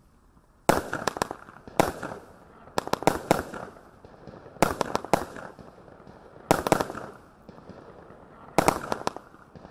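Tai Pan Rampage 150-shot firework cake firing its shots. Clusters of sharp cracks come every one to two seconds, six clusters in all, the first about a second in, with fainter noise between them.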